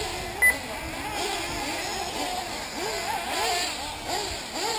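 Several 1/8-scale nitro RC buggy engines revving up and down, their high-pitched whine rising and falling over and over as the cars race around the track. A brief sharp blip sounds about half a second in.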